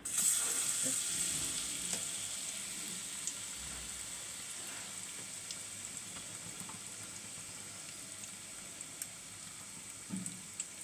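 Gram-flour pakora batter with mashed aubergine hitting hot oil in a kadai: a sudden loud sizzle as it goes in, easing off over the following seconds to a steady frying hiss with small scattered pops.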